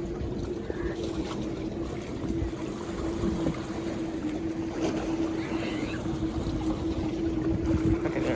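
Wind on the microphone and sea surf, with a steady hum holding one tone throughout.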